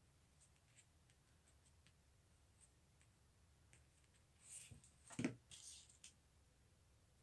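Faint ticks of beaded wire being handled and twisted, then, about four and a half seconds in, a brief rustle, a sharp knock and more rustling as green floral tape is taken up and pulled off its roll.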